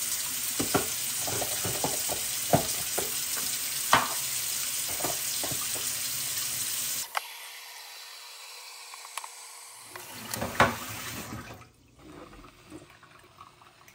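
Kitchen tap running hot water, a steady hiss for about seven seconds that cuts off suddenly; a few knocks and handling sounds follow.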